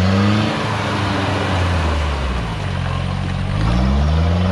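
A vehicle engine under way. It climbs in pitch until about half a second in and then eases off under steady road noise, and climbs again from about three seconds in, as when pulling away or through the gears.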